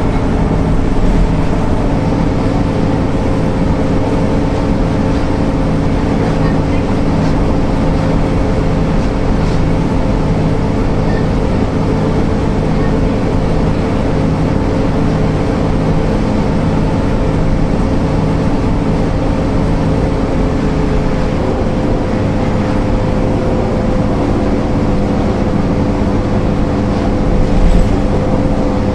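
MAN NL 262 city bus's diesel engine running steadily under way, an even drone with little change in pitch, and a brief louder moment near the end.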